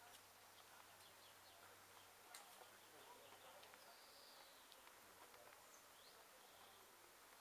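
Near silence: faint outdoor ambience with a few faint, brief bird chirps and an occasional faint click.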